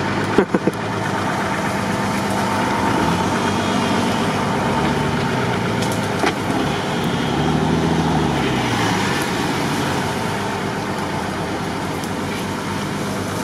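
Off-road 4x4 engine running near idle, revved up and back down twice, about three seconds in and again around eight seconds.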